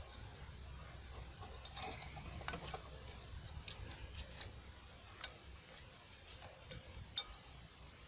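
Faint, irregular clicks and light taps of thick nylon trimmer line being worked into the metal clips on a string-trimmer head, with two sharper clicks standing out.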